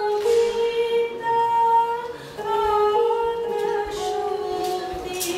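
A woman singing a slow melody in long held notes that step from pitch to pitch, accompanied on an electronic keyboard played through a small amplifier.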